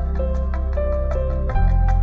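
Background music with mallet-percussion melody notes over a steady bass and an even beat; the bass shifts to a deeper note about one and a half seconds in.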